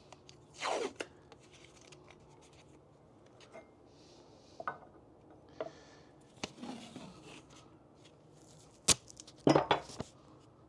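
Blue masking tape being pulled off the roll, torn and pressed down: a run of short rips and rustles, with a sharp click and the loudest rip near the end.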